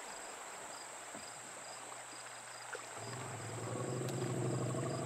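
Faint insect chorus: a steady high insect whine with cricket-like chirps repeating about twice a second. About three seconds in, a low steady hum with overtones comes in and grows slightly louder.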